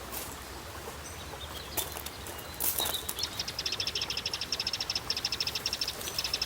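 Outdoor natural ambience with a few faint clicks, then from about three seconds in a high-pitched, rapidly pulsed trill from a calling animal, about ten pulses a second, continuing steadily.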